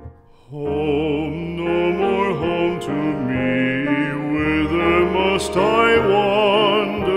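A man's voice singing a slow, legato melody with wide vibrato over a sustained keyboard accompaniment. The singing comes in about half a second in, after a short hush.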